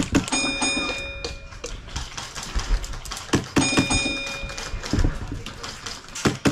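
Airsoft gunfire: scattered sharp cracks of single shots. Two of them are followed by a ringing tone lasting about a second.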